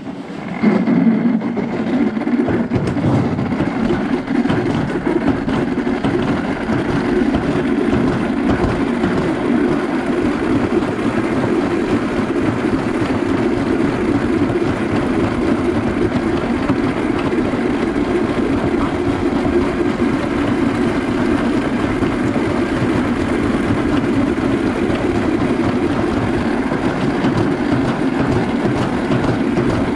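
Toboggan running down a metal trough chute: a steady rattling rumble of the sled riding in the chute, starting about half a second in as it sets off from the start.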